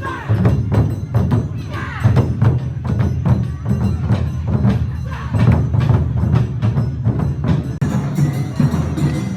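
Awa Odori festival band playing its quick, driving dance rhythm: taiko drums and a clanging kane hand gong beating steadily, with the rest of the ensemble playing over them.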